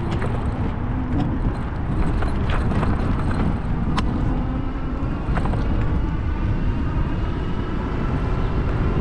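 Riding a fat-tyre e-bike at speed: wind rumbling over the microphone with the tyres rolling on the trail, a faint steady whine from the electric drive, and a few sharp clicks.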